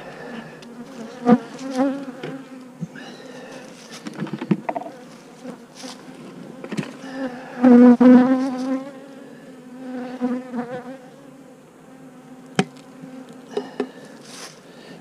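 Honey bees buzzing close by, their wingbeat hum swelling and fading as individual bees pass, loudest about eight seconds in. A few sharp knocks sound through it, once near the middle and once near the end.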